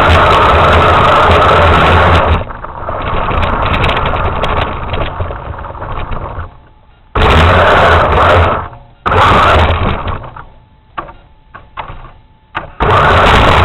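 RC truck's motor running under throttle in several loud bursts, backing off between them with scattered clicks, then running steadily again near the end.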